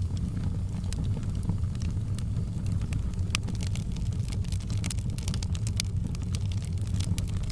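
Fire burning in a fireplace: a steady low roar of the flames with many sharp, irregular crackles and pops, thickest in the last few seconds.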